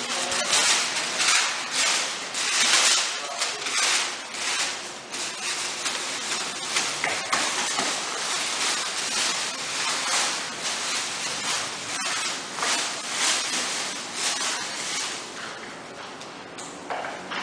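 Paper costume being torn and crumpled: rustling and crackling of stiff paper in uneven surges, easing off near the end.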